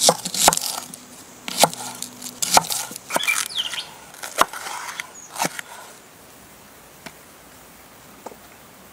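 Cleaver chopping onion and green pepper on a thick wooden chopping board: a run of sharp, irregular knocks of the blade into the wood over the first six seconds. After that come a few faint taps as the cut pieces are set down.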